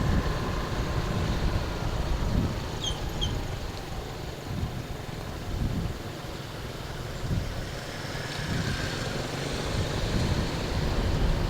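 Vehicle and road-traffic noise: a fluctuating low rumble of engines and tyres, with two short high chirps about three seconds in.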